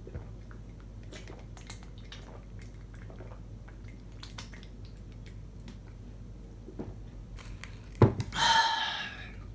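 Beer being swallowed from an aluminium can in small, faint gulps. About eight seconds in, the can is set down on the table with a sharp knock, followed at once by a breathy exhale of about a second.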